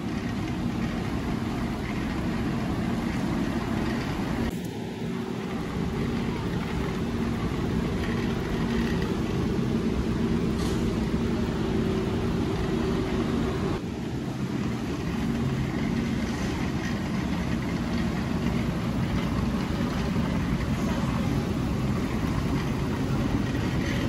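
Steady low rumble and hum of a large store's background noise.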